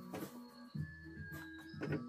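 Background music: steady held tones over a repeating low note pattern, with a few short sharp accents.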